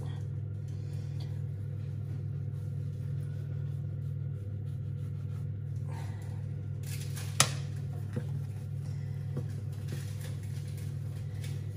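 A steady low hum, with one sharp click about seven seconds in.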